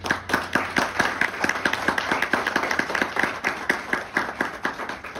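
Audience applauding, starting suddenly and easing off slightly toward the end.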